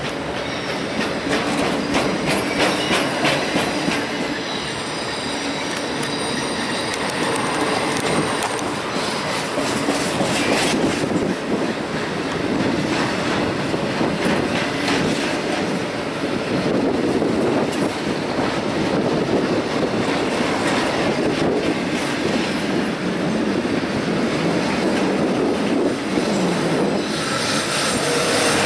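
Double-stack intermodal container train rolling past, a steady rumble of steel wheels on rail with repeated clicks. A thin, high squeal from the wheels on the curving track stands out from about five to nine seconds in.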